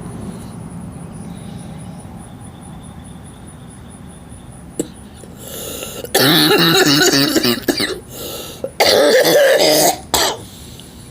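A woman coughing hard in two long fits, the first about six seconds in and the second about nine seconds in: a smoker's cough while having a cigarette.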